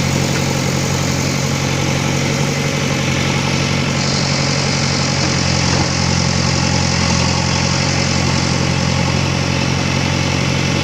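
Diesel engine of a JCB backhoe loader running at a steady idle.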